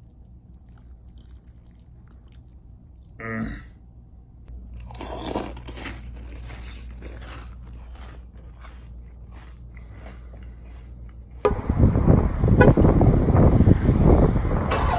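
Crunchy cereal being chewed with the mouth close to the microphone, a run of crisp crackles. About three-quarters of the way through it gives way suddenly to loud, dense outdoor street and car noise with a low rumble, the loudest part.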